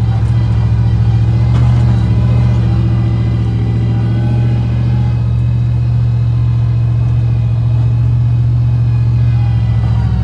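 Car driving at a steady speed: a loud, even low drone of engine and road noise.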